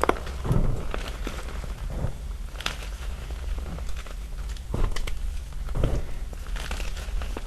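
Small chunks of gym chalk crushed by hand in loose chalk powder: scattered small sharp snaps and crackles, a second or so apart, with softer low rustling of the powder in between.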